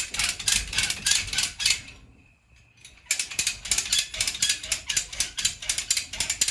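Hand-operated ratchet hoist (come-along) being worked to lift a load, its pawl clicking rapidly at about five clicks a second. It stops for about a second, two seconds in, then starts again.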